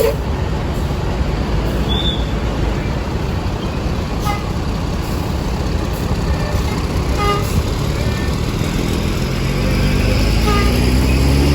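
Loud, steady roadside traffic rumble from a tour bus. Near the end the bus engine's pitch rises and grows louder as it accelerates. A few short faint tones sound about every three seconds.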